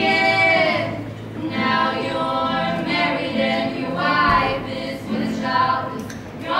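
Two women singing a slow melody together in harmony, in long held phrases, over sustained low acoustic guitar notes.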